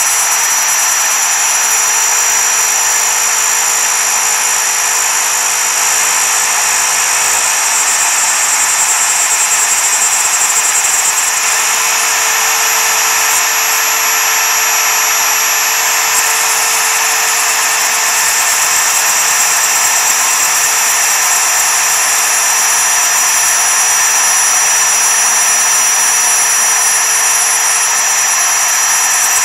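CNC router spindle at full speed driving a single-flute end mill through 6061 aluminium plate, a steady high whine over the rasping of the cut as the tool traces the part outline.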